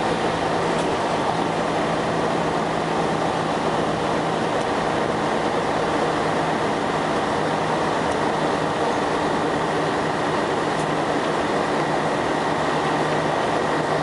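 Scania L113CRL bus with a ZF automatic gearbox, heard from inside the passenger saloon while driving at a steady pace. The engine and driveline drone holds one pitch with no gear change, under constant road and tyre noise and a faint steady high whine.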